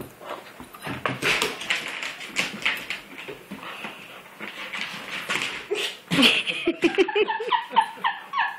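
A dog chasing an ice cube across a hard kitchen floor, with claws and the cube clicking and skittering. A quick run of short whimpers comes in the last two seconds.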